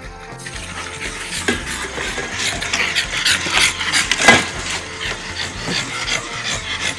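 Lit charcoal crackling and popping in a round grill, a dense run of small crackles with a few louder knocks, the loudest about four seconds in.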